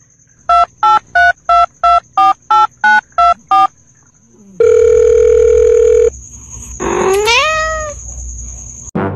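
Telephone keypad tones: about ten quick two-note beeps, roughly three a second, then a steady phone tone for about a second and a half. Near the end comes a short, rising cat meow.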